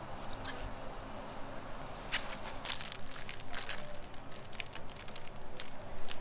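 Thin plastic produce bags crinkling in quick, irregular crackles as bagged avocados are handled, over a low steady hum.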